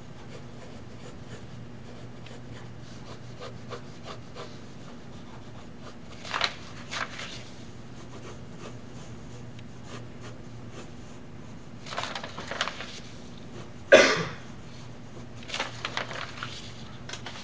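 Pencil sketching on animation paper: soft, scratchy strokes, with a few louder rustles as paper sheets are lifted and flipped, the loudest about fourteen seconds in. A steady low hum runs underneath.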